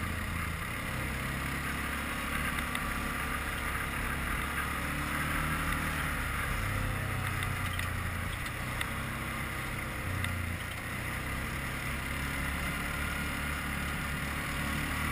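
Quad bike (ATV) engine running steadily under way, its low drone shifting in pitch a few times.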